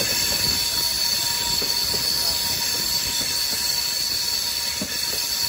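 Passenger train coach rolling slowly through a mountain ghat section, its steel wheels squealing against the rails in a steady high whine over the rumble of the carriage.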